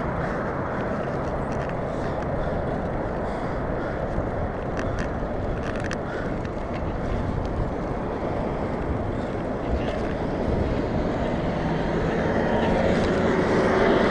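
Wind rushing over the microphone of a handlebar-view camera on a moving bicycle, a steady rumbling noise that grows louder near the end.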